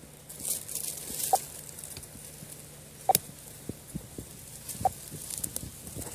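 Radio-telemetry receiver beeping: three short, faint tone pulses evenly spaced about every second and three-quarters, the signal of the radio transmitter carried by a tracked eastern hognose snake. There is light hiss and a few soft clicks from brush being handled.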